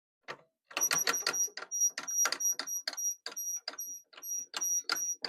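Pull test on crimped fluorocarbon leader: the tester is worked with rapid sharp clicks, about three to four a second, while a high electronic beep sounds on and off from about a second in.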